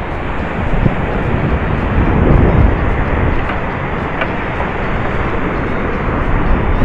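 Wind buffeting the microphone in a steady, gusty rumble, with surf noise behind it.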